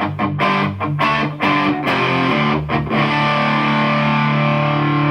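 Distorted electric guitar played through a Boss Katana 50 combo amp fitted with an Eminence Cannabis Rex speaker. It plays a choppy riff with short stops, then leaves a chord ringing from about three seconds in.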